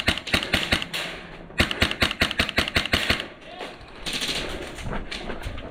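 Airsoft gun firing on full auto: two bursts of rapid cracks with a short pause between them, the second ending a little after three seconds in.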